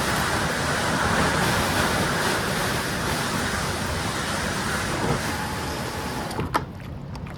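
Steady rushing noise of wind on the microphone and moving river water. Near the end there is a single sharp click, and the noise drops to a quieter hiss.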